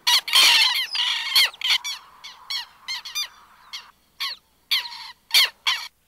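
Southern lapwings calling loudly with harsh, repeated calls: a rapid overlapping volley at first, then single calls a few tenths of a second apart.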